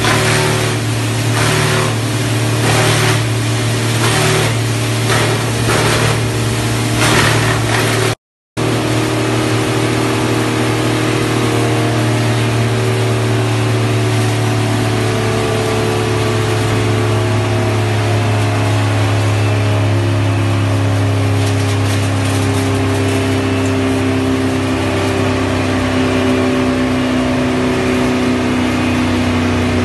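Wood sawdust machine running with a loud, steady low hum. For the first eight seconds, pulses of noise come about once a second; after a brief dropout it runs on evenly.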